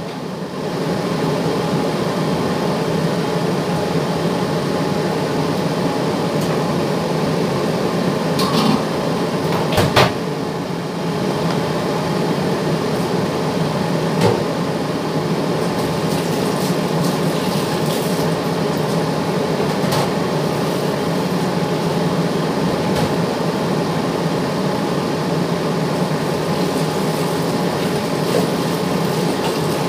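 A steady rushing noise at the kitchen sink, with a few sharp clinks and knocks of dishes being washed.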